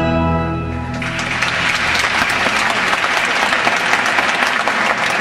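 The song's final held chord dies away about a second in, and the audience breaks into steady applause.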